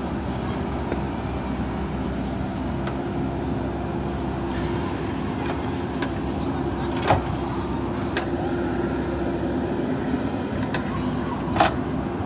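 JCB 3DX backhoe loader's diesel engine running steadily under work, with a few sharp clanks, the loudest two about seven and eleven and a half seconds in.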